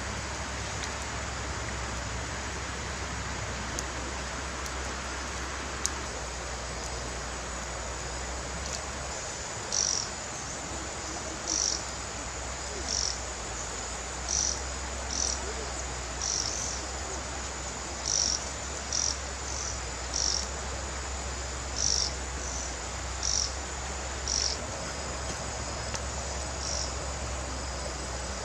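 A small animal's short, high chirping calls, repeating roughly once a second and sometimes in quick pairs, starting about ten seconds in, over a steady outdoor background hiss. Two single sharp clicks come in the first few seconds.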